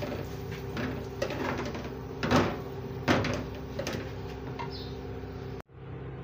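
Wooden spatula stirring and scraping a dry, crumbly ground-nut and flour mixture in an aluminium karahi: a run of irregular scrapes, the loudest about two and three seconds in, over a steady low hum. The sound cuts off suddenly near the end.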